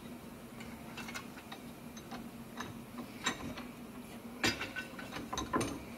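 Scattered light metallic clicks and ticks of steel parts and tools being handled on a Bridgeport R8 milling-machine spindle held in a vise, a few sharper clicks in the second half, over a faint steady hum.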